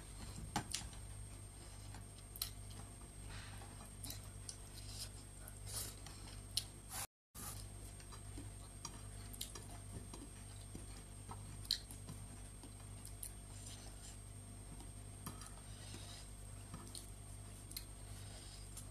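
Close-up eating sounds: soft chewing and fingers mixing rice on a plate, with scattered small clicks and smacks. A brief gap of silence about a third of the way through.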